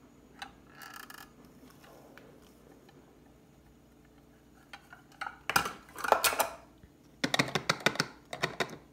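Measuring spoons clicking and tapping against a plastic funnel as baking soda is spooned into a spray bottle, in two bunches of quick taps, one about halfway through and one near the end.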